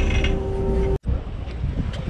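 Boat machinery running loudly with a rattle and a steady hum that strengthens just before it cuts off abruptly about a second in. Then wind buffets the microphone over the sound of the sea along the hull.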